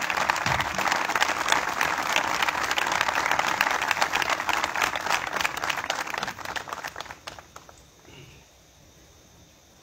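Crowd applauding, a dense patter of hand claps that dies away about seven seconds in.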